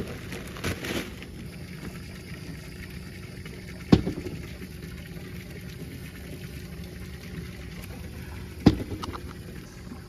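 A pig feeding at a feed box, with two sharp knocks about five seconds apart, over a steady low hum.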